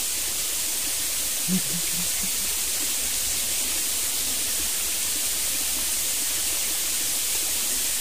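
Steady, even hiss of flowing stream water.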